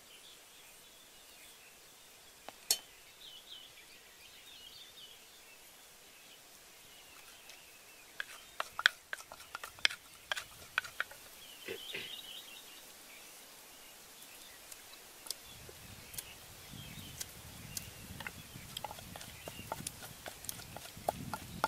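Wooden pestle working in a terracotta clay mortar: scattered sharp clicks in the middle, then steady knocking and thudding from the pestle in the last several seconds. There is one sharp knife click a few seconds in, with faint bird chirps.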